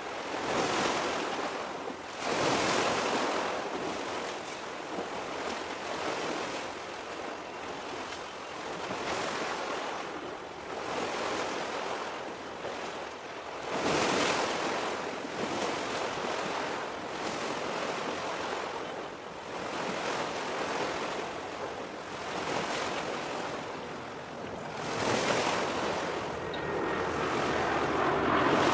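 Sea waves washing in, a rushing hiss that swells and ebbs every few seconds and grows louder near the end.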